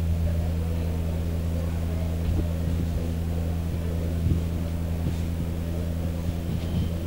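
Steady low electrical hum made of several even, unchanging pitches, with a few soft knocks about two and four seconds in.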